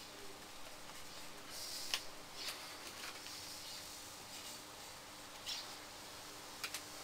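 Faint, short scratchy swishes of a paintbrush working acrylic paint on paper, several in a row, with a sharp click about two seconds in and a quick double click near the end, over a faint steady hum.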